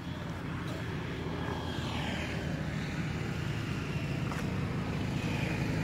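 A steady low engine drone, growing gradually louder.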